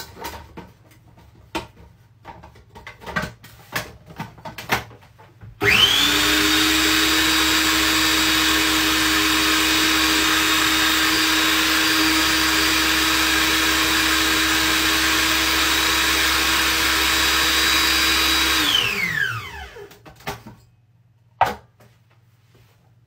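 Small food processor motor running steadily for about thirteen seconds, whipping butter into self-raising flour, then winding down with a falling whine. Before it starts, clicks and knocks as the plastic bowl and lid are handled.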